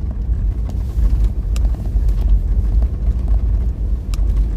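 Car driving, heard from inside the cabin: a steady low road rumble with a few faint clicks.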